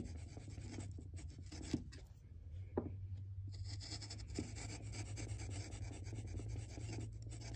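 Steel bench chisel paring a wooden muntin by hand: a run of short, dry scraping strokes as thin shavings lift, with a pause of about a second and a half after the first two seconds and a few light clicks. A low steady hum lies underneath.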